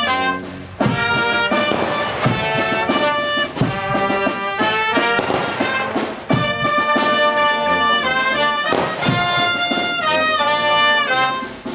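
Brass band music: slow, long-held notes that change in steps.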